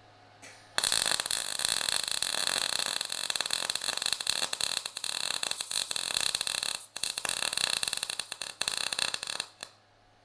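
A 120-volt gas-shielded MIG welder's arc crackling as a "stack of dimes" bead is run on a metal bracket. It starts about a second in, breaks off briefly just before seven seconds and stops shortly before the end.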